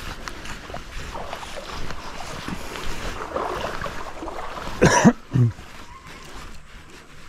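Shallow stream water running, with a hooked trout splashing at the surface about five seconds in, a short loud splash followed by a smaller one.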